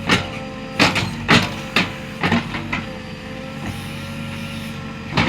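JCB backhoe loader's diesel engine running steadily under work, with a string of sharp knocks or clanks, about five in the first two and a half seconds and another near the end.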